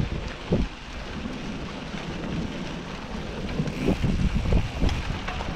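Wind buffeting a moving camera's microphone, with irregular low thumps and knocks from riding over rough trail ground.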